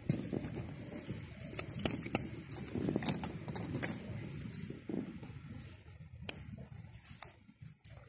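Close handling noise: small plastic toys clicking and tapping together, with rustling of fabric. Several sharp clicks stand out, the loudest about two seconds and about six seconds in.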